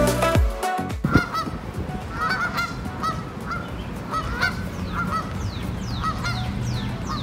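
A flock of Canada geese honking, short calls repeated every half second or so, after electronic background music stops about a second in. From about five seconds in, a series of high falling whistles joins the honks.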